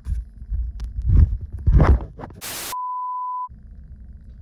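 Bumps and thumps as a phone camera is handled, then a short burst of static and a steady, high test-tone beep lasting under a second. The static and beep are a TV broadcast-interruption sound effect.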